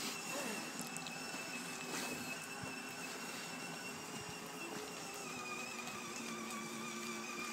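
Battery-powered ride-on toy Mercedes with its electric motor and gearbox whining steadily as it drives along, with a few faint clicks.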